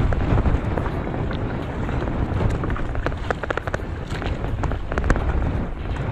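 Wind buffeting the microphone on a small boat at sea, with a run of short clicks and rustles as a nylon gillnet is hauled in by hand.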